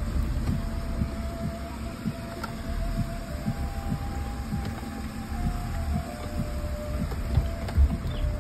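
Suzuki Jimny (JB43) crawling over rocks in a creek bed, heard from inside the cabin: a low engine rumble with frequent low knocks and bumps as the wheels climb over stones, and a thin whine that shifts in pitch.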